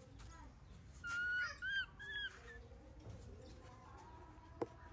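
Baby macaque giving high-pitched calls: one longer call about a second in, then two short arched calls close together. A single sharp tap near the end.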